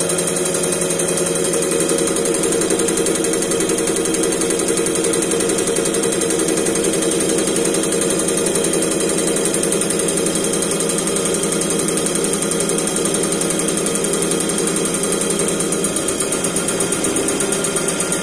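Common-rail diesel injector test bench running, a steady mechanical hum with a fast, even rattle as the injector is fired on the bench to check it.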